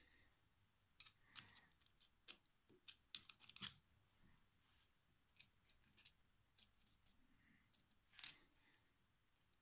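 Faint clicks and taps of small metal parts as a Traxxas X-Maxx centre differential's gears and case are fitted together dry with a small screwdriver. A burst of quick clicks comes about a second in, then a few single ones.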